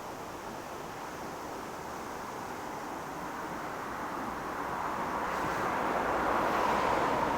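Road traffic: a vehicle's tyre and road noise swelling as it approaches, loudest near the end as it passes.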